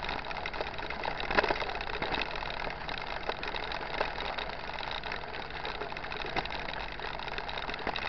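Mountain bike rolling over a gravel dirt road: steady tyre and rattle noise with frequent small clicks and knocks from the bumpy surface.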